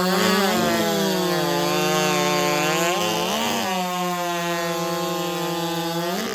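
90cc-class two-stroke race chainsaw at full throttle, cutting through a log in a timed race. Its high, steady note dips briefly about half a second in, again around three seconds in, and once more near the end.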